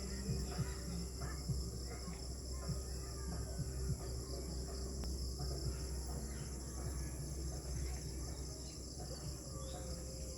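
Steady, high-pitched evening chorus of crickets and other insects, with faint scattered bird calls and a low steady rumble underneath.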